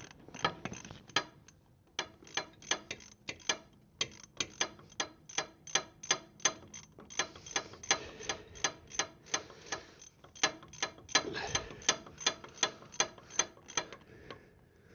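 Hand ratchet clicking in a steady run of sharp ticks, about three a second, with brief pauses, as a multi-spline brake caliper bolt is wound out.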